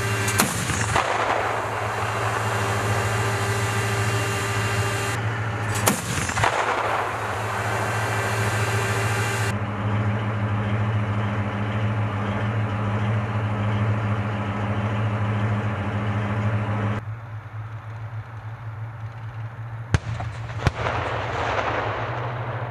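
Bradley fighting vehicle's diesel engine running steadily, with single loud shots from the range's 25 mm cannon fire: one about half a second in and one about six seconds in, each echoing away, then two sharper shots less than a second apart near the end.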